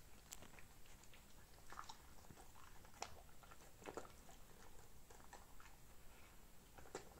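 Dog chewing and biting a piece of crusty Viennese baguette: faint, irregular crunches and clicks, a few louder ones about three, four and seven seconds in.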